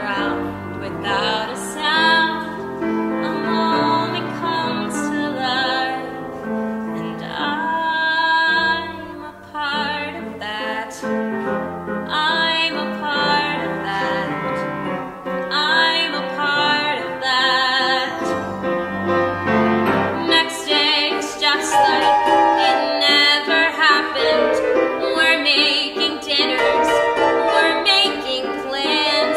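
A young woman singing a musical-theatre song with vibrato on held notes, accompanied by a grand piano. The piano's deep bass notes drop out about two-thirds of the way through, leaving voice and higher piano chords.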